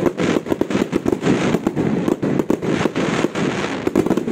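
Fireworks display: aerial shells bursting in a dense, irregular run of bangs and crackles, several each second, overlapping one another.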